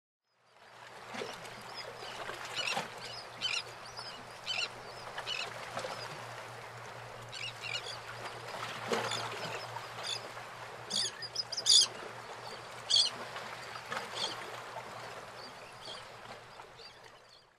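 Waterside ambience: birds calling now and then, in short high calls, over a faint wash and a steady low hum. The sound fades in at the start and out at the end.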